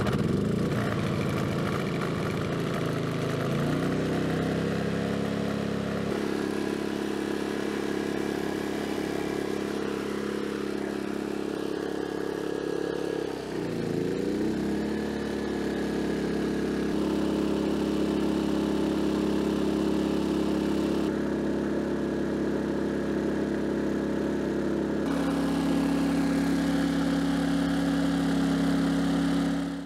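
Pulsar GX400BN dual fuel inverter generator running on gasoline, a steady engine drone. About three seconds in its pitch climbs, and about halfway through it dips briefly and climbs back. It is carrying the power station's full 1800-watt charging load.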